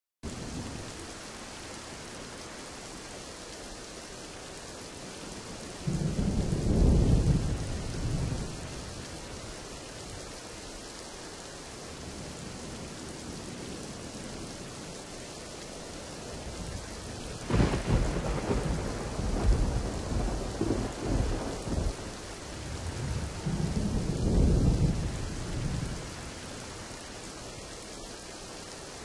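Steady rain falling, with thunder rumbling three times: a rumble a few seconds in, a sharp crack about midway that rolls on for several seconds, and another rumble near the end.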